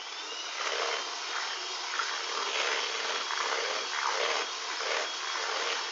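Moulinex electric hand mixer running at a steady speed with a thin motor whine, its beaters whisking cake batter in a plastic bowl. The swishing swells about twice a second as the beaters are swept round the bowl.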